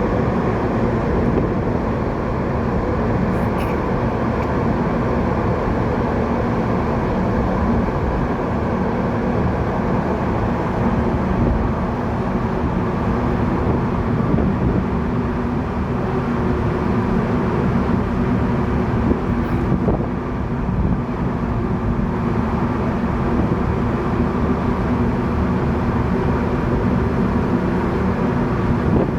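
Large containership's engine drone as it passes: a steady low rumble with a faint constant hum.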